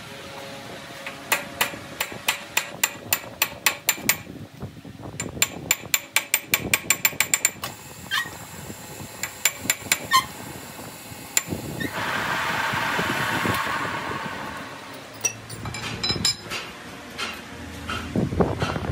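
Runs of sharp metallic taps and clicks on a four-jaw lathe chuck and the metal disc clamped in it, first about three a second, then a faster run of about six a second, then scattered ones. This is the work of setting and tightening the disc in the chuck. A short rushing scrape comes about twelve seconds in.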